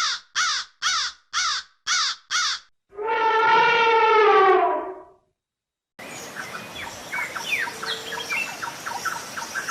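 A string of animal calls cut together: first a run of harsh, crow-like caws, about two a second, then one long drawn-out call lasting about two seconds. After a short silence comes a busy scatter of short bird-like chirps over a steady hiss.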